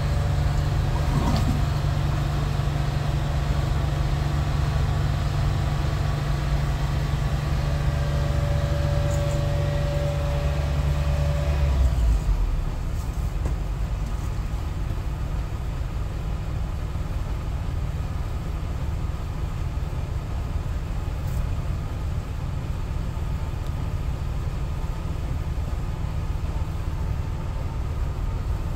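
Sewer hydro-jetter's engine and high-pressure pump running steadily, a low drone driving the water jet through the sewer line. About twelve seconds in, its steady hum gives way to a lower, rougher rumble.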